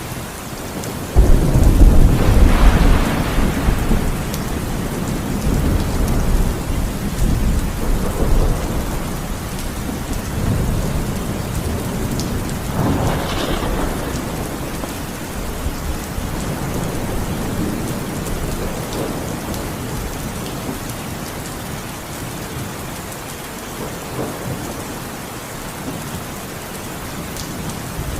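Heavy rain falling steadily, with a thunderclap about a second in that rolls on as a low rumble for several seconds, and a second, weaker roll of thunder around the middle.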